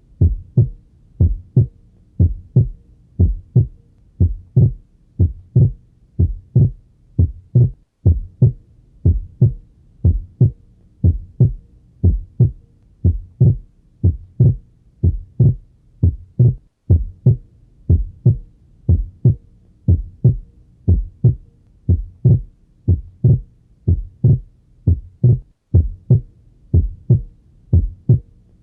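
Normal heart sounds on auscultation at the pulmonic area: regular lub-dub beats, the second sound (S2) splitting into aortic and pulmonary components on inspiration and becoming single on expiration. This is physiological splitting of S2.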